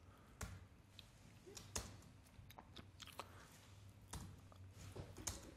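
Near silence with a scattering of faint, irregular clicks: keystrokes on a computer keyboard.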